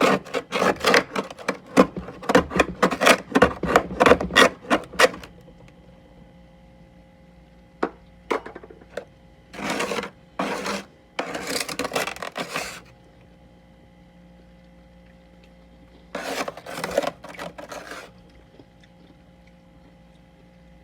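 Humidifier-grown freezer frost being scraped in quick, rough strokes, about three or four a second, which stop about five seconds in. After a pause and a few clicks, further bursts of rough frost noise come around the middle and again near the end, over a steady hum.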